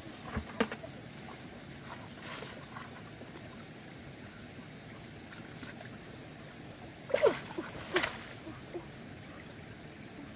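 Water splashing and sloshing in two short spells, about half a second in and again, louder, around seven to eight seconds in, over a steady background hiss.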